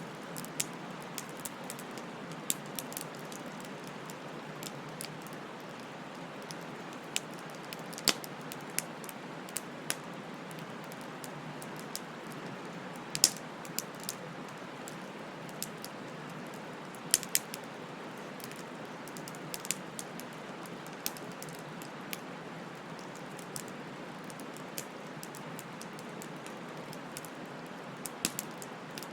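Wood fire crackling: a steady hiss with irregular sharp snaps and pops, a few much louder than the rest.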